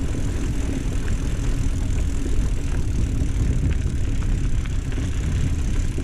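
Steady low rumble of a mountain bike rolling down a dry dirt trail: tyre noise and wind on the handlebar camera's microphone, with a few light ticks of gravel or bike parts.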